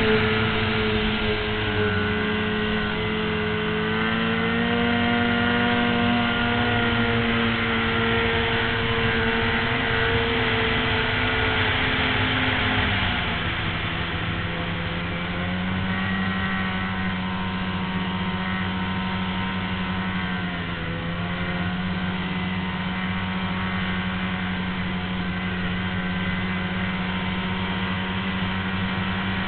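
Snowmobile engine running at a steady trail speed over a constant hiss, its pitch stepping down about halfway through and dipping briefly again about two-thirds of the way in.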